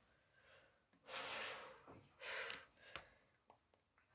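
Two short, breathy exhales like sighs, about a second apart, followed by a few faint clicks.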